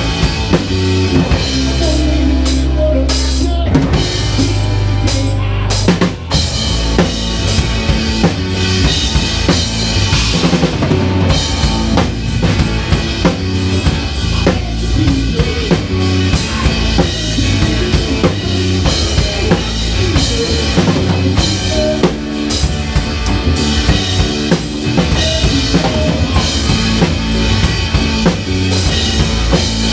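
A drum kit played hard in a live rock song — a 1970s Ludwig Vistalite with a Ludwig Black Magic snare and Paiste 2002 cymbals — loud and up front, with the band's low held notes underneath. About two seconds in a low chord is held while the hits thin out, and the full beat comes back about six seconds in.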